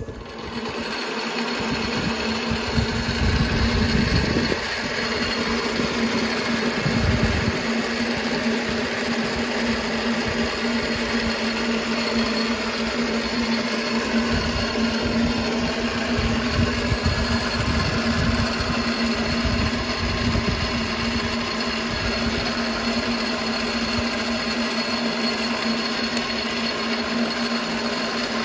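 Boxford Model A bench lathe running: its electric motor and geared headstock give a steady mechanical whir with a constant hum. The sound starts suddenly, builds over the first second or two as the lathe comes up to speed, then holds steady.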